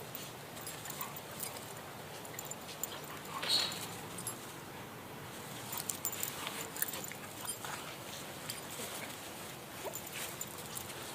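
Dogs playing: scattered short clicks and scuffles with a faint dog whimper, and one brief louder sound about three and a half seconds in.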